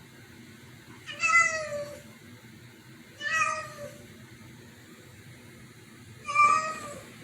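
A cat meowing three times, each meow under a second long with a slight fall in pitch at the end, the calls spaced two to three seconds apart.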